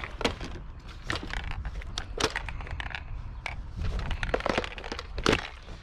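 Repeated clattering knocks and crackling of kerbside junk being grabbed and handled, with a couple of louder knocks about two seconds in and near the end.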